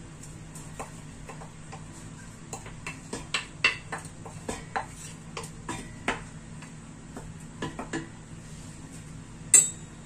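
Wooden spoon scraping and tapping chopped onion out of a bowl into a stainless steel pot, then stirring in the pot: an irregular run of light clicks and knocks, with a sharper knock near the end.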